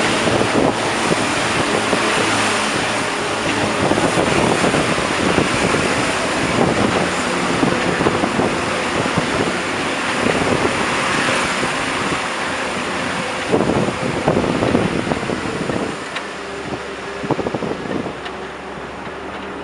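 Moving bus heard from an open side window: engine and road noise with wind buffeting the microphone, and a few short knocks. It gets somewhat quieter over the last few seconds.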